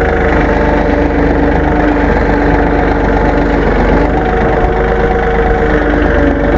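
Tractor engine running steadily at a low idle, its tone shifting slightly about four seconds in.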